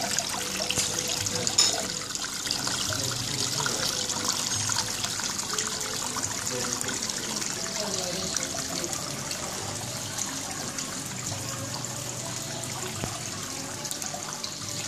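Water from an artificial landscape waterfall splashing and trickling steadily, a constant hiss.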